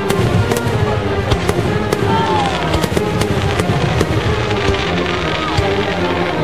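Fireworks going off in quick succession, many sharp bangs and crackles, over music.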